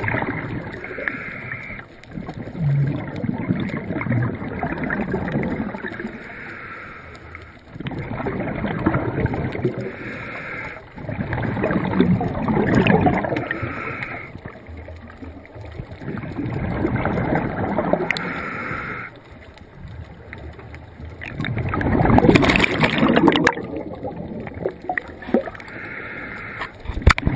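Water gurgling and rushing against an underwater camera, swelling and fading every few seconds.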